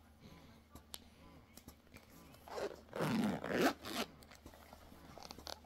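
Zipper of a small camera carry case being pulled open, a few short rasping pulls about two and a half to four seconds in.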